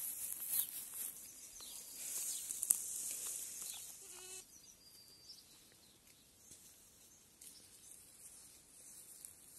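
Goat kids grazing close by, tearing and munching grass in a crisp, crackly patter for the first few seconds. One short wavering bleat comes about four seconds in.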